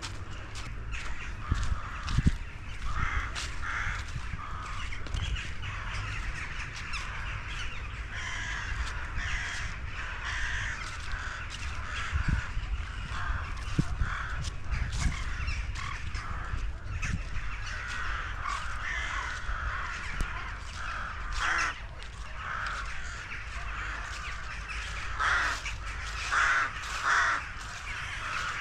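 A flock of crows cawing again and again, with a run of louder caws near the end. Footsteps scuff through dry fallen leaves over a steady low rumble.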